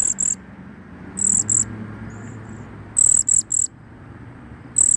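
Cedar waxwing fledgling begging for food: very high, thin calls in clusters of two or three short notes, repeated about every second and a half.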